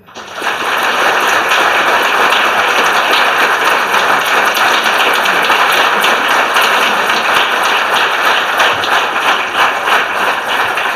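Audience applause: many people clapping together. It swells up within the first half second, holds steady, and eases slightly near the end.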